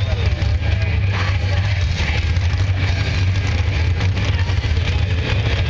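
A heavy pulling-vehicle engine running with a steady low drone that holds even, with faint crowd chatter over it.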